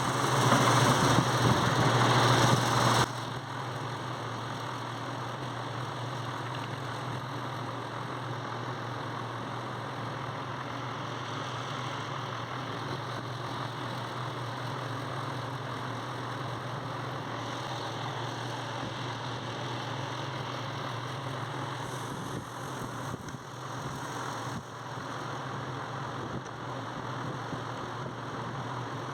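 A steady low hum, like a motor running, louder for about the first three seconds and then holding level. No gunshots are heard.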